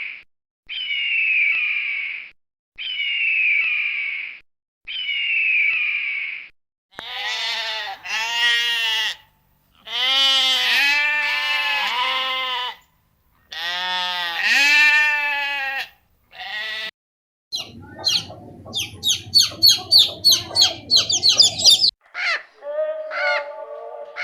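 A run of animal calls: first four identical high, falling calls, then several long bleats with a wavering pitch, then a rapid series of short, high chirping calls near the end.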